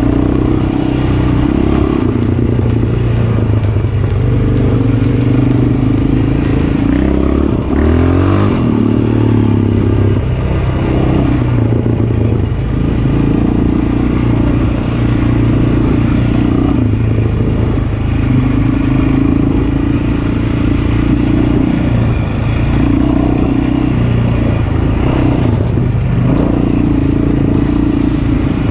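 Yamaha Raptor 700 quad's single-cylinder four-stroke engine running while riding a dirt trail. The engine note rises and falls with the throttle, changing most sharply about eight seconds in.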